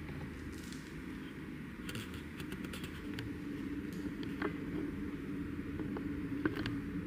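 Small clicks and scrapes of metal ear picks and cleaning tools being handled during ear cleaning, starting about two seconds in, over a steady low room hum that gains a faint steady tone about three seconds in.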